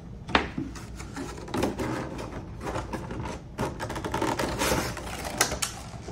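Clear plastic display tray from a trading-card box being handled and lifted off a table: a sharp click, then a run of quick plastic clicks, taps and crackles.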